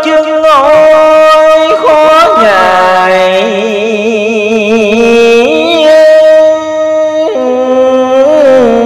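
A man chanting Hoa Hao Buddhist scripture verses in the traditional sung reading style through a microphone and amplifier. He holds long notes with a slow, wavering vibrato, and the melody moves to a new note every second or two.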